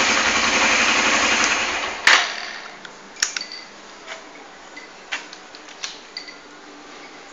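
Suzuki GN250's single-cylinder four-stroke engine idling through a modified, chamfer-cut exhaust a little louder than stock, then shut off about two seconds in with a sharp click. A few light clicks follow.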